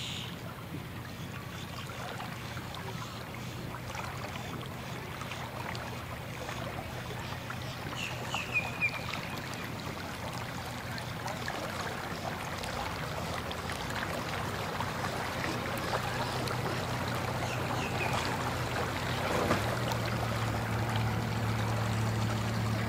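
Yamaha SHO four-stroke outboard idling as a bass boat comes in slowly: a steady low hum with water churning at the stern, growing louder as the boat nears. The engine note gets stronger near the end.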